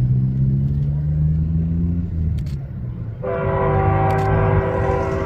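A low engine drone fades out over the first two seconds or so. About three seconds in, a Ferromex diesel locomotive's air horn starts suddenly and holds a loud chord of several tones.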